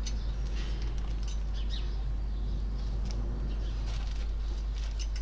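A steady low background hum, with faint, short bird-like chirps scattered through.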